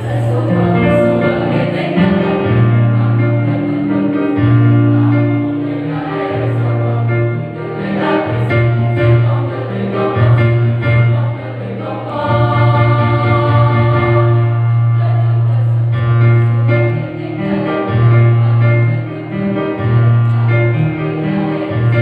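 Dance accompaniment music: a chorus of voices singing over a heavy, pulsing bass line.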